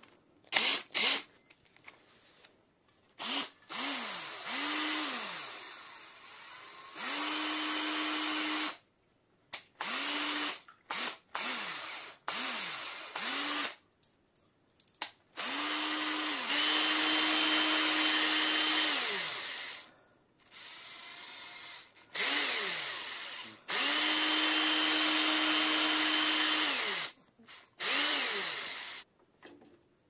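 Cordless drill spinning a bottle brush inside the lower slider legs of a Fox suspension fork to scrub them clean. The motor whines up and winds down in a string of short trigger bursts, with three longer steady runs of a few seconds each, the brush scrubbing noisily against the inside of the tubes.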